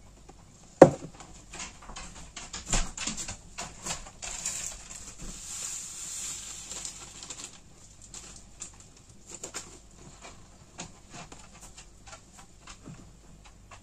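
Handling noises at a counter: knocks and clicks of plastic containers being set down and moved, with a sharp knock about a second in, and a rustling, hissing stretch in the middle as a salt packet is handled.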